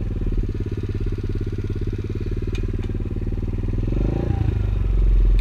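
110cc pit bike's single-cylinder four-stroke engine idling steadily, heard close up from the rider's helmet. It revs up slightly near the end.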